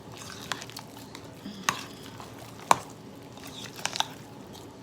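Soft stirring and squishing of a potato and bacon mixture in a mixing bowl, with a few sharp clicks and knocks against the bowl, the loudest about halfway through.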